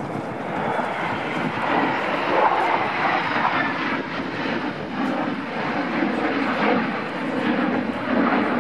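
Two F-16 Fighting Falcon fighter jets flying past together, their jet engine noise building over the first couple of seconds and then holding steady and loud.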